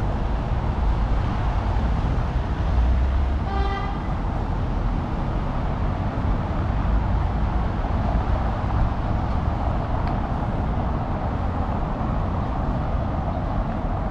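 Steady city street traffic noise with a low rumble, and one short vehicle horn toot about three and a half seconds in.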